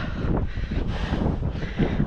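Wind buffeting the microphone: a heavy, uneven rumble.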